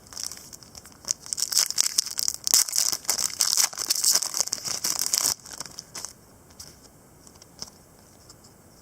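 Trading cards and their plastic pack wrapping handled close to the microphone: a dense crackling rustle for about five seconds that stops suddenly, then a few light clicks.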